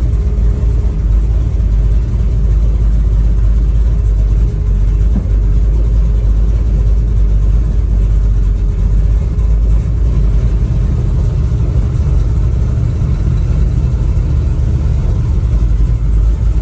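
Chevy Nova's engine rumbling steadily at low cruising speed, heard from inside the car's cabin. The engine is running well, its camshaft sounding smooth.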